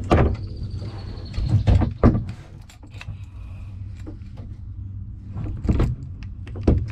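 Handling noise in a kayak: several sharp knocks and bumps with rustling over a low rumble, as a phone is propped up and a large bass is lifted to be weighed.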